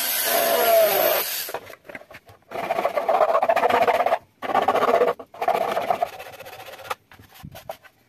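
A tool working a PVC plastic boat hull in repeated bursts, each one to two seconds long, the last ending about seven seconds in and followed by a few short taps.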